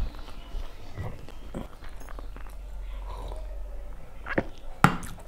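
Close-miked eating sounds: chewing and squelching of rice and dal mixed by hand on a steel plate, with scattered small clicks and two louder sharp knocks near the end.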